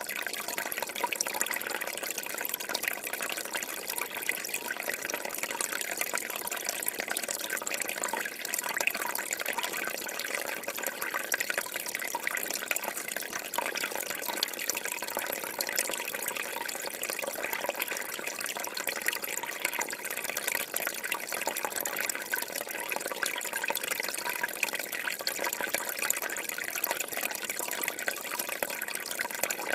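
Waterfall: a steady rush and splash of falling water, even throughout, with little deep rumble.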